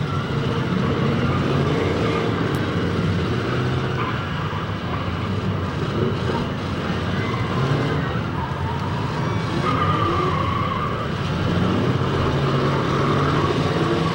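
Engines of demolition derby cars running and revving, their pitch rising and falling as the last few cars still moving push around the track.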